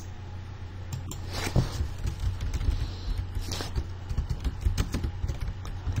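Typing on a computer keyboard: a run of irregular light key clicks.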